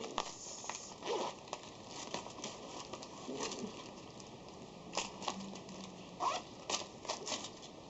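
A small coin pouch being handled: soft rustling with a handful of scattered light clicks of coins, a few sharper ones past the middle.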